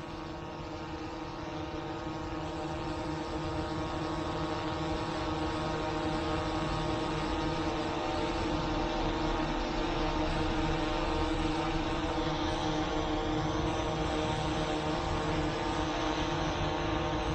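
Autel EVO II quadcopter hovering on its new propellers: a steady, pitched propeller hum that grows louder over the first several seconds, then holds steady.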